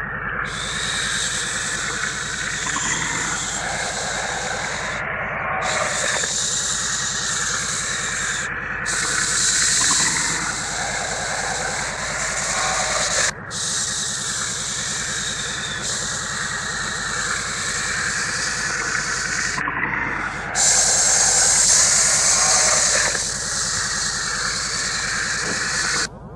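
Science-fiction sound effect: a steady hiss with slow sweeping swells in pitch, broken by a few brief dropouts, louder for a few seconds about two-thirds of the way through.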